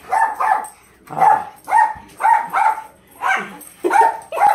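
A small dog barking repeatedly in short, sharp barks, about two a second, while playing with another dog.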